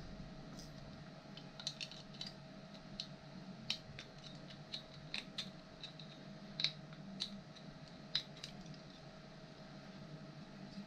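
A hand tool clicking and snipping on a hard 3D-printed plastic part: about twenty short, sharp, irregular clicks, over a faint steady hum.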